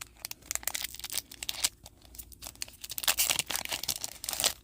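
Foil booster pack of trading cards being torn open and crinkled by hand: a run of irregular crackles and rips, busiest near the end, then stopping.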